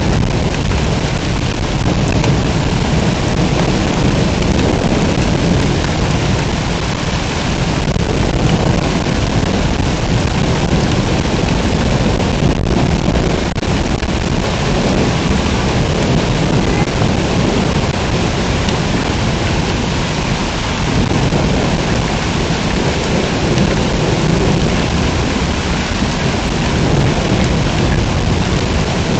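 Heavy rain pouring steadily in a thunderstorm, with a constant low rumble underneath.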